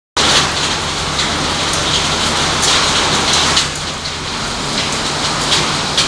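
Refrigerator recycling line machinery running: a loud, dense hiss with irregular crackling and a steady low hum underneath.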